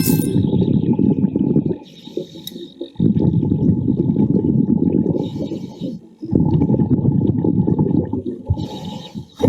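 Scuba diver breathing underwater through a regulator: long bursts of exhaled bubbles gurgling and rumbling, three times, with a short, quieter hiss of inhaled air between them.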